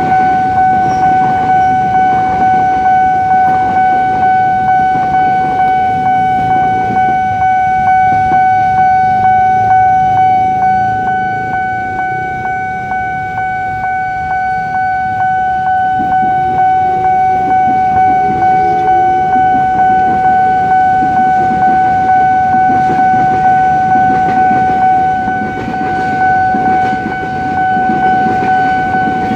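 Railway level-crossing warning bell sounding one steady tone in an even, unbroken pulse. KRL commuter electric trains rumble past at the start and again near the end.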